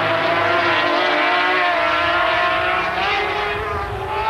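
Racing sidecar outfits' engines running at high revs, a high-pitched whine whose pitch sags slightly, then rises again near the end as they accelerate out of a corner.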